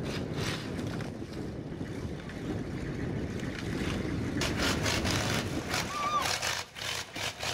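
Monster truck's engine running with a steady low rumble as it drives over a row of scrap cars, with wind buffeting the microphone. About halfway through, a rougher hissing noise joins it.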